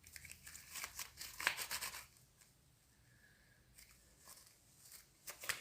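Homemade glue and boric-acid slime being squeezed and pulled in the hands, giving off quick sticky crackles and clicks in two spells: during the first two seconds and again just before the end.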